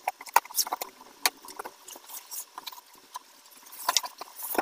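A knife slitting packing tape on a cardboard box, with irregular clicks and short scrapes, then cardboard flaps and foam packing scraping and rubbing as the computer case is pulled out, densest about four seconds in.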